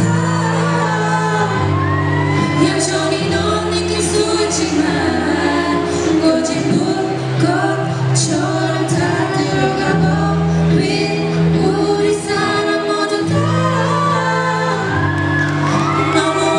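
Two female voices singing a pop song through handheld microphones over backing music with a drum beat.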